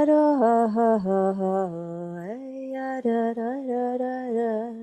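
A woman singing a wordless vocal improvisation meant to voice the shimmer of a labradorite stone: long held notes that step down in pitch, then rise again about two seconds in, with small gliding turns between them.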